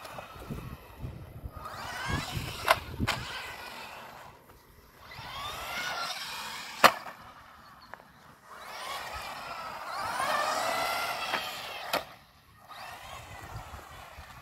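1/18-scale brushed four-wheel-drive RC truggy: its electric motor and gears whine up and down in pitch in several short throttle bursts, over the rumble of small tyres rolling on concrete. A few sharp knocks come through, the loudest about seven seconds in.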